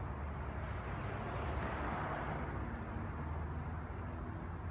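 Road traffic going by: a steady low engine rumble with tyre noise that swells and fades about a second or two in.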